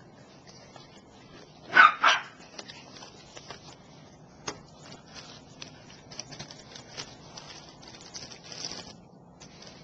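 A dog barks twice about two seconds in, then plastic packaging crinkles and clicks as a pocket knife is unwrapped.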